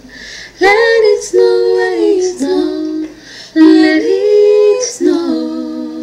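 A woman's voice singing a cappella in two overdubbed parts in harmony, in short phrases with long held notes. The last held note fades out near the end.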